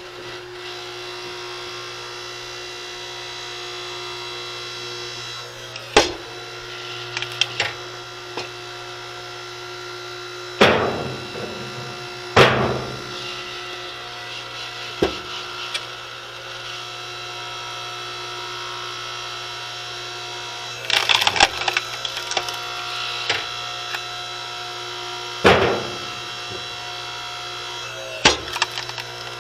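DR 5-ton electric hydraulic log splitter running with a steady motor and pump hum while wood rounds are split. Several loud, sharp cracks and knocks of wood splitting and split pieces being handled on the beam break in at irregular times.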